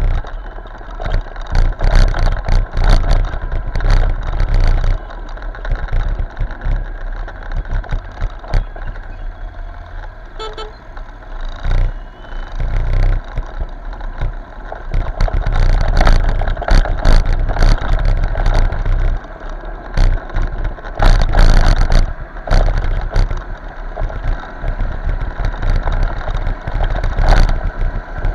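Road noise of a motorcycle ride through traffic, with wind buffeting the helmet- or bike-mounted action camera's microphone in irregular gusts that rise and fall.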